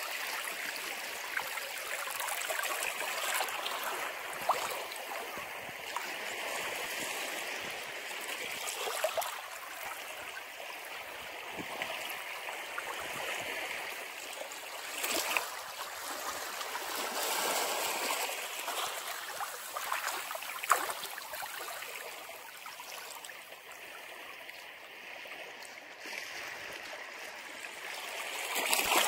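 Ocean surf washing against a rocky shore: a steady hiss of water that swells and eases every few seconds, with a few brief sharp splashes.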